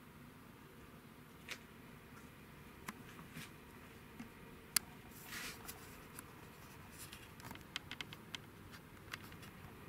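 Quiet room tone with faint, scattered small clicks and ticks. A sharper click comes a little before the middle, followed by a brief rustle, and a quick run of small clicks comes later on.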